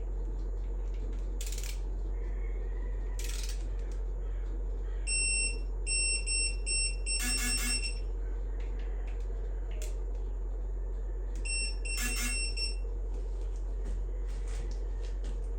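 Digital torque wrench beeping as each cam plate bolt reaches its set torque: a few spaced beeps that close up into a steady tone, heard twice about five seconds apart, over a steady hum.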